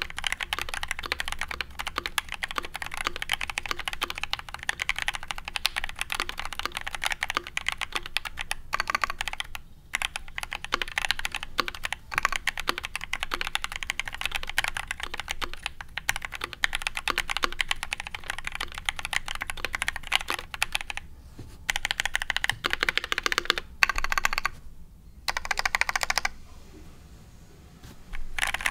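Custom mechanical keyboard (KBD67mkii polycarbonate case, brass plate, lubed and filmed H1 linear switches) being typed on quickly and continuously, with a few brief pauses. Near the end the typing comes in short separate bursts, then falls quiet for about two seconds.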